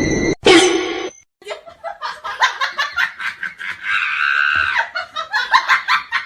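A person laughing in quick, repeated bursts, after a short sound and a brief silence near the start.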